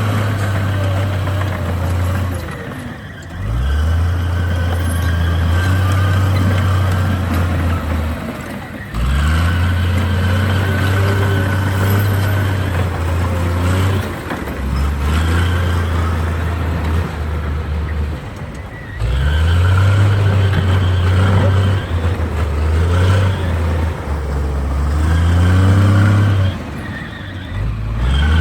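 Bulldozer's heavy diesel engine working under load, dipping and then revving back up four or five times, with a high squeal over it.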